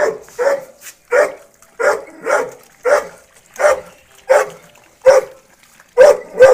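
A dog barking over and over in a steady rhythm, about two short barks a second.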